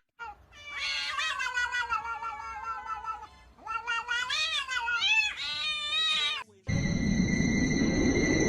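A cat meowing in long, drawn-out, wavering yowls: one long call, then several shorter ones. Near the end the sound cuts to a steady hiss with a high-pitched tone.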